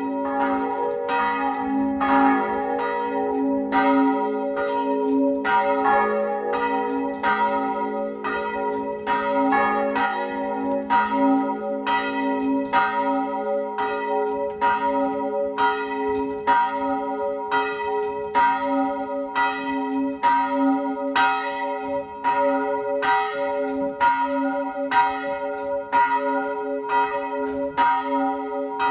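Several church bells ringing together in a steady run of overlapping strokes, their deep hum sustaining between strikes.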